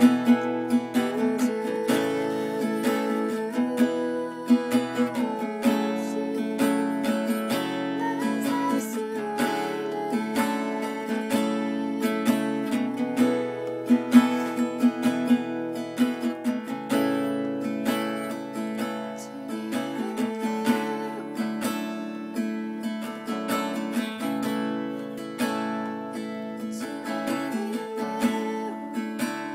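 Acoustic guitar strummed in a steady rhythm, its chords changing every few seconds.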